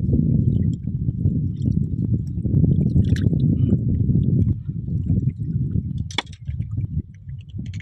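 Water sloshing and gurgling close to the microphone, a choppy low churn that eases off about halfway through, with a couple of light clicks.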